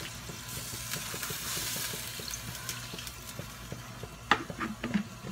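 Water poured from a plastic jug into a hot wok of simmering adobo, hissing and sizzling as it hits the sauce; water added to tenderize the meat. A few sharp knocks near the end.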